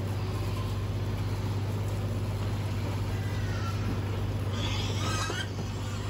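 Livestock truck's engine running with a steady low hum. Pigs squeal briefly, a short high wavering cry about three seconds in and a louder cluster of squeals around five seconds.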